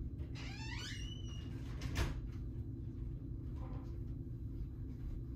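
A door creaking as it swings, then shutting with a sharp click about two seconds in, over a steady low room hum.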